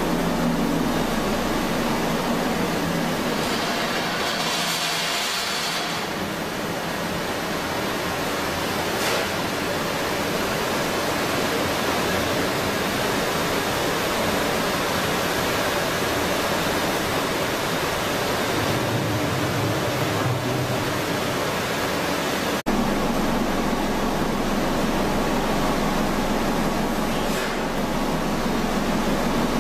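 Steady loud rushing noise of a running cook-quench-chill machine for pasta, with a faint low hum underneath. The sound changes abruptly about two-thirds of the way through, where the hum becomes a little stronger.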